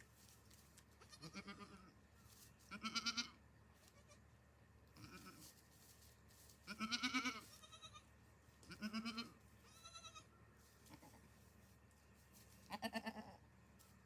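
Goats bleating: about seven separate wavering calls, each under a second long, spread through the stretch with short pauses between.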